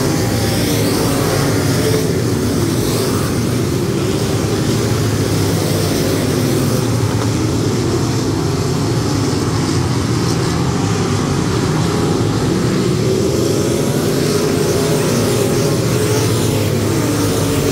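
A field of USRA Limited Modified dirt-track race cars running laps together. Their V8 engines blend into a loud, steady drone whose pitches waver as cars pass and throttle through the turns.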